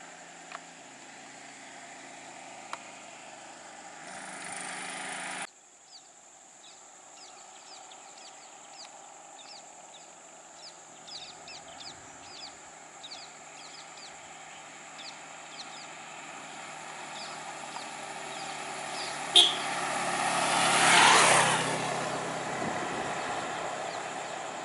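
Vehicle engines running slowly, cut off short after about five seconds; then a bird gives a string of short high chirps over faint traffic hum. Near the end a very brief sharp sound comes, and a lorry's diesel engine grows louder as it draws near, peaking and then easing.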